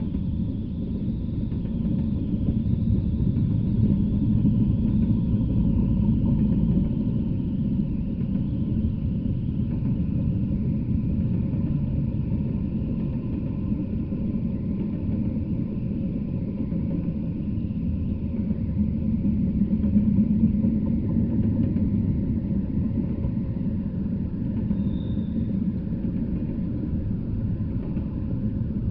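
Double-stack intermodal container train rolling steadily past, a continuous low rumble of steel wheels on rail.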